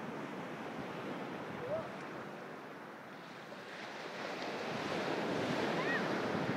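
Sea waves washing onto the beach, the surf swelling to its loudest about four to six seconds in, with wind buffeting the microphone.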